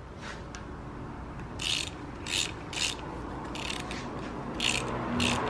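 Hand ratchet clicking through about six short strokes, driving a socket on an extension to tighten a bolt on the engine; the strokes start about a second and a half in.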